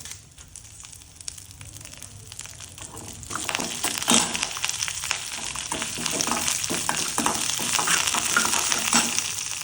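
Urad dal, dried red chillies, garlic and curry leaves frying in sesame oil in a kadai, sizzling and crackling, with a spoon stirring. The sizzle grows louder and denser about three seconds in.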